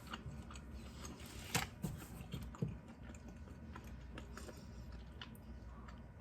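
A person chewing a soft buttered biscuit: faint, scattered mouth clicks, a slightly louder one about a second and a half in.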